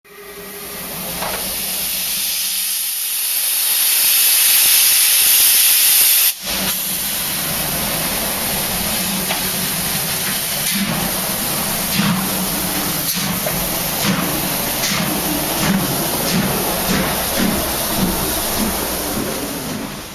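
Steam locomotive blowing off steam in a loud, steady hiss, broken off briefly about six seconds in. The hiss then carries on with an uneven low pulsing underneath in the second half.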